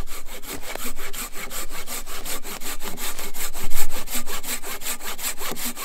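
Silky Big Boy folding pull saw cutting through a dead log in rapid, even strokes.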